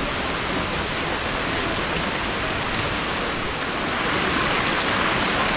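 Waterfall rushing in a steady, even roar, growing slightly louder near the end.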